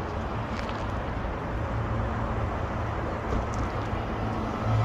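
Steady rumbling traffic noise from cars crossing the bridge overhead, with no single event standing out.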